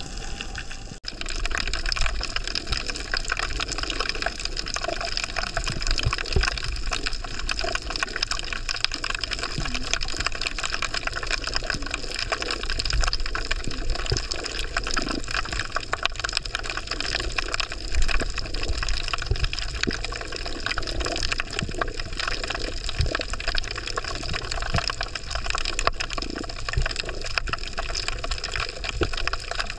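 Underwater ambience on a coral reef: a dense, steady crackle of tiny clicks over rushing water noise.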